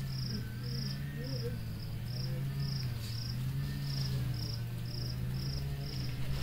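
A cricket chirping steadily, about two chirps a second, over a steady low hum.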